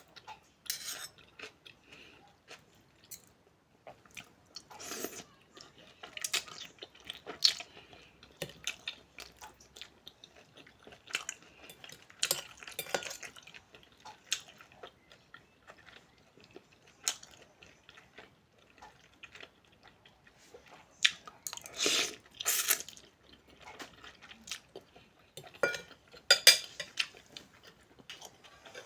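A person eating a bowl of noodles: cutlery clinking and scraping against the bowl, with chewing in between. The clinks come at irregular moments.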